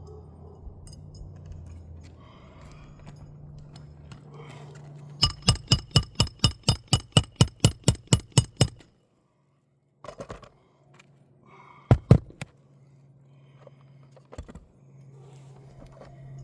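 Hammer driving a roofing nail into a shingle: a fast run of about seventeen ringing metal strikes, around five a second for three and a half seconds, then two more hard blows a few seconds later.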